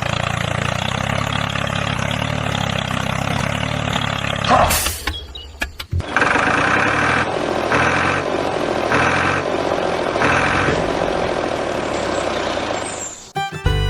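Engine-like running sound with a steady low drone. It breaks off briefly about five seconds in, then runs on with a higher tone that pulses on and off about once a second.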